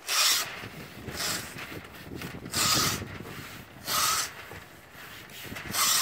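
3M Hand-Masker dispensing masking tape and brown masking paper: four short bursts of sound as tape is pulled off the roll and the taped paper is run along the garage door's edge trim.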